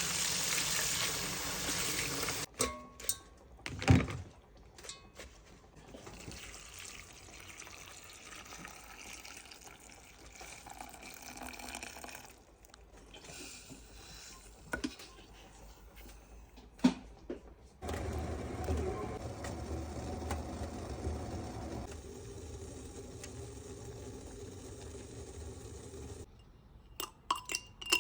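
Kitchen tap running into a sink, cut off after about two and a half seconds. Then scattered sharp knocks of utensils and containers being handled, and a steady low rushing sound from about eighteen to twenty-six seconds.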